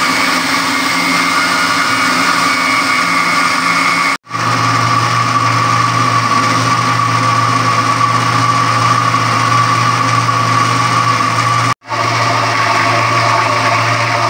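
Electric mixer-grinder (blender) running with a steady motor whine, whipping eggs, sugar and oil into a thin cake batter. The sound breaks off for an instant twice, about four seconds in and near the end.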